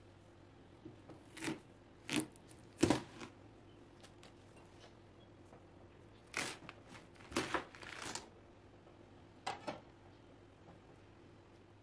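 A knife cutting through a whole watermelon: a series of short, irregular crunches and cracks from the rind and flesh, about half a dozen spread out, the loudest one, with a dull knock in it, about three seconds in.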